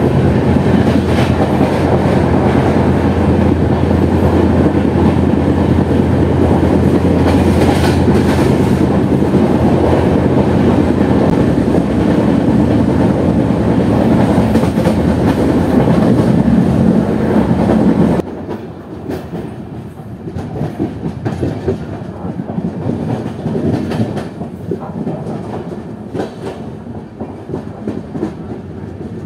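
Express passenger train running along the track. It is loud and steady until a sudden drop in level about two-thirds of the way through, after which it carries on quieter.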